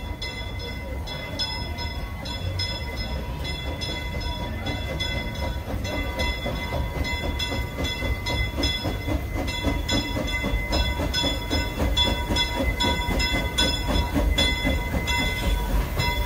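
Narrow-gauge steam locomotive pulling in, growing steadily louder. A steady high ringing tone runs over a regular run of clicks and a low rumble.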